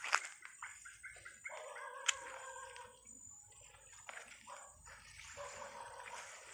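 Two drawn-out animal calls, one starting about a second and a half in and another near the end, with a couple of sharp clicks along the way.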